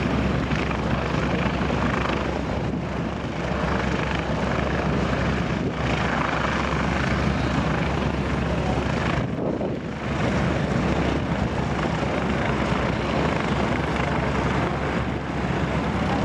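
Airbus A320 airliner's twin jet engines in a steady, loud roar as it flies a banking display turn overhead, dipping briefly about nine seconds in.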